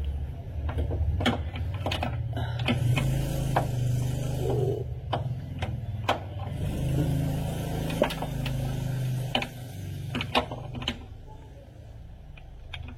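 A power tool's motor running with a wavering low hum as it works the lower steering-rack mounting bolts, with scattered metal clinks and knocks from the tool and socket.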